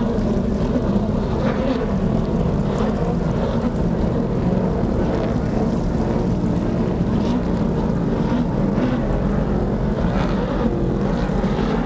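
Steady drone of motorboat engines running at speed on open water.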